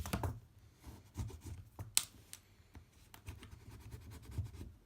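Small scattered clicks and faint rubbing of an alcohol swab being wiped around the iPad's frame, with one sharp click about two seconds in.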